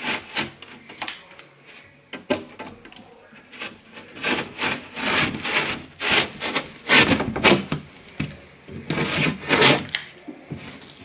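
Utility knife cutting through the paper facing of a gypsum drywall board along the snapped fold: a series of scraping strokes of the blade dragging through the paper.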